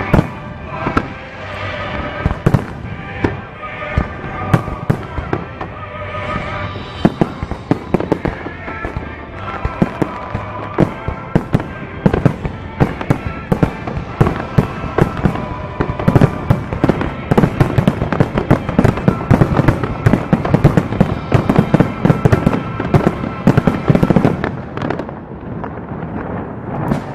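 Fireworks display: aerial shells bursting in a rapid, irregular run of bangs and crackles, thickest in the second half and thinning out near the end, with music playing underneath.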